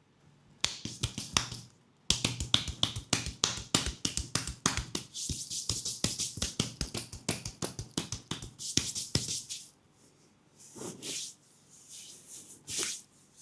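Rapid percussive massage strikes on a leg: sharp slaps or taps at several a second. A short burst comes first, then after a brief pause a long run of strikes. Near the end they give way to a few softer, scattered sounds.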